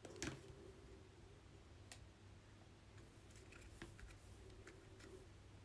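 Near silence with a few faint, sharp clicks from trading cards being handled and turned over one by one.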